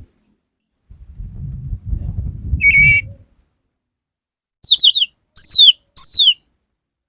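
Oriental magpie-robin (kacer) song: a short steady note about midway, then three quick downward-sliding notes and two longer downward-sliding whistles near the end. A low rumble comes before the song in the first half.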